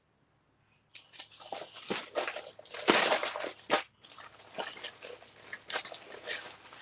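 Clear plastic zip-lock bag crinkling and crackling as hands open it and slide the paper sheets out. It starts about a second in and is loudest around the middle.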